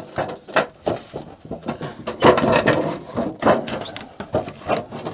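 Sheet-metal flashing baffle being pushed and shifted by hand into the refrigerator's vent compartment, giving irregular flexing clanks, knocks and scraping rubs of thin metal.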